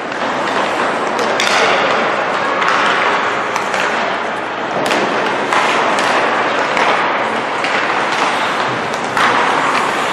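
Ice hockey warm-up: pucks clacking off sticks and thudding against the boards, with a sharp ping like a puck off the goal post, over a steady wash of skate and rink noise.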